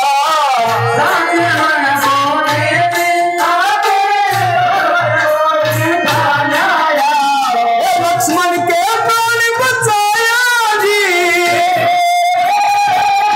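Live devotional folk song (bhajan): a singer's long, wavering held notes over a harmonium melody, with a dholak beating out the rhythm and dropping out for a moment now and then.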